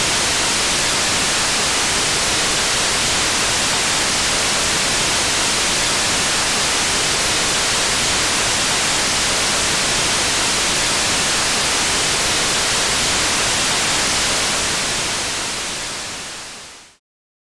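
Steady, loud hiss of TV static, like an untuned analogue television, fading away near the end and then cutting off.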